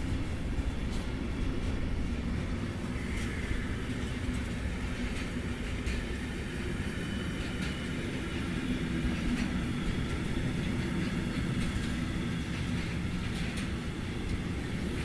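Intermodal freight train's wagons rolling past: a steady rumble of wheels on rail, with scattered clicks over the rail joints and a faint high wheel squeal at times.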